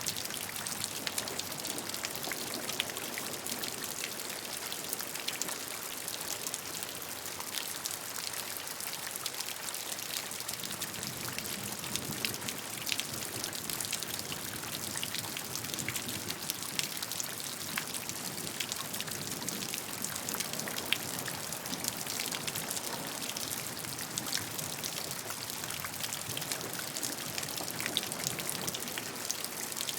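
Steady rainfall, a constant hiss of rain with many individual drops pattering on a surface.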